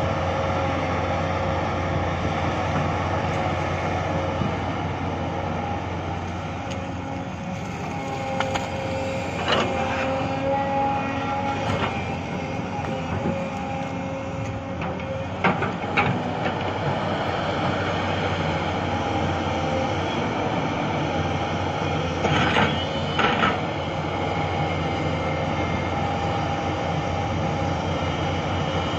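Crawler excavator's diesel engine running steadily under load, with a whining tone that shifts slightly in pitch as the arm and bucket work. Several sharp metallic clanks come through, the loudest pair about two-thirds of the way in.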